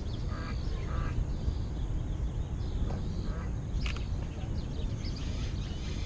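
Outdoor ambience: a steady low rumble of background noise with faint bird chirps, and a single sharp click about four seconds in.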